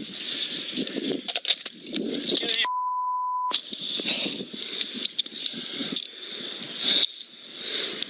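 Body-worn camera handling noise: clothing and gear rustling and jangling as the officer moves. About two and a half seconds in, a steady beep of just under a second replaces all other sound: a censor bleep over a word.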